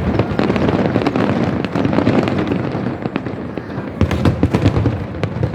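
Fireworks display going off in a rapid, continuous barrage of bangs, with a cluster of louder bangs about four seconds in.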